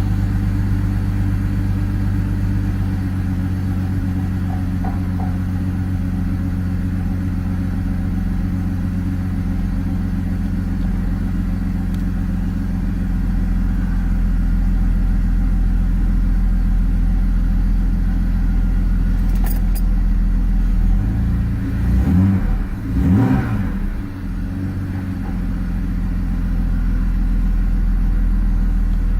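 BMW E46 330i's M54B30 inline-six idling roughly after a cold start. About three quarters of the way through the engine is revved briefly, its pitch rising and falling back to idle.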